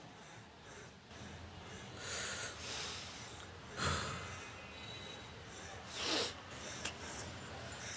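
A man's breathing and sniffing: three short, noisy breaths or sniffs, the loudest near the middle, with a small click near the end.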